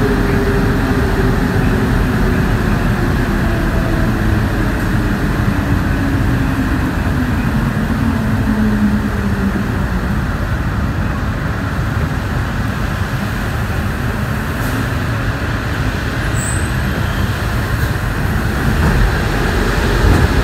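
Rubber-tyred CAF NS-07 metro train running through a tunnel, heard from the driver's cab: a steady running rumble with a motor whine that falls in pitch over the first nine seconds or so as the train slows.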